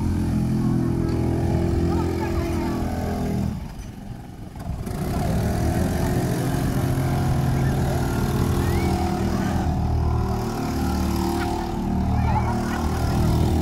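Small Honda four-stroke outboard motors on inflatable bumper boats running steadily at low speed, giving a continuous engine hum that dips briefly about four seconds in.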